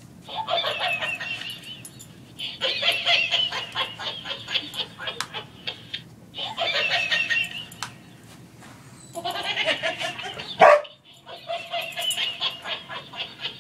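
A laughing plush toy monkey's electronic laugh plays in repeated bursts of rapid cackling, each lasting one to three seconds with short pauses between. The English Springer Spaniel barks once, loudly, about ten and a half seconds in.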